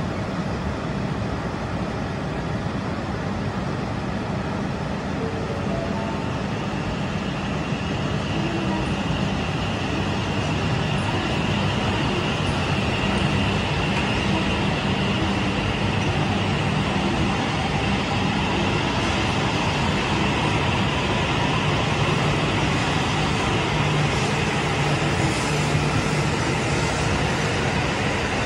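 E8 series Yamagata shinkansen train pulling out of the station and gathering speed: a steady rumble of wheels and running gear that grows slightly louder, with a faint high motor whine through the middle.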